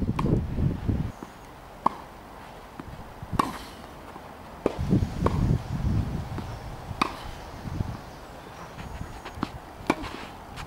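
Tennis ball struck by rackets and bouncing on a grass court during a rally: sharp, single pops every second or two. Between them come bursts of low rumble from wind on the microphone.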